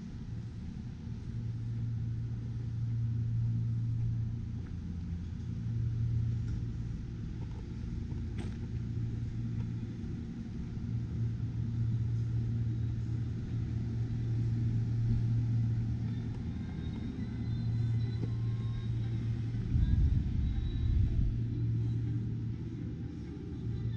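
A steady low rumble of the kind made by a vehicle engine or road traffic, swelling and easing, with a stronger low surge about twenty seconds in.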